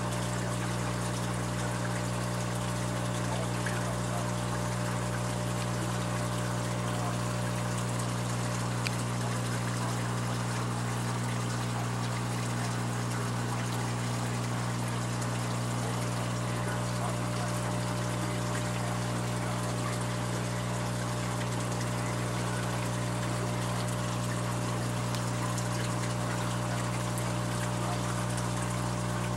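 Aquarium wet/dry filter running: a steady trickle of water over a constant low pump hum.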